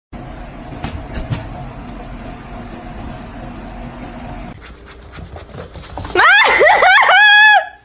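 A steady background rumble and hiss, then about six seconds in a run of four or five loud, quick animal cries, each sliding up and down in pitch.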